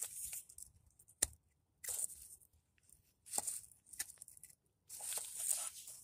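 Irregular rustling and scraping as an engine-compartment wiring harness is handled and pulled free, with one sharp click a little over a second in.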